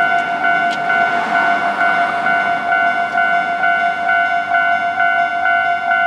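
Japanese level-crossing warning bell ringing in a steady repeating ding at about two strokes a second. Under it, the low running noise of a JR KiHa 11 diesel railcar pulling slowly in swells and fades in the first half.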